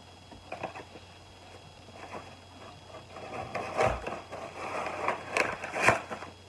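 Tabletop handling noises: scattered light taps, then rustling of a small paper bag with a few sharp knocks, loudest in the last few seconds.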